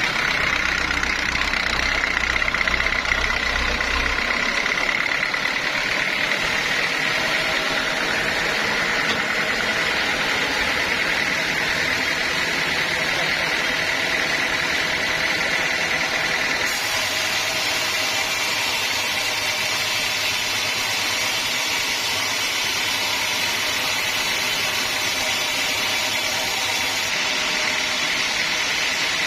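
Sawmill machinery running steadily, a constant mechanical drone with a high whine through it.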